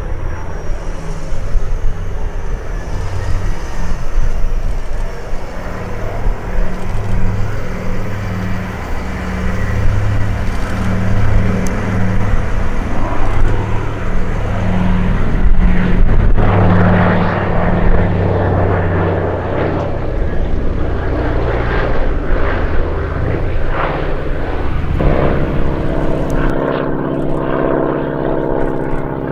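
The two Pratt & Whitney Twin Wasp radial engines of a Consolidated PBY Catalina flying boat running overhead in a low display pass, with a slow, even pulsing beat between the two engines; the sound swells a little past the middle. Near the end it cuts to a single-engine North American Harvard flying by, a buzzier radial-engine note.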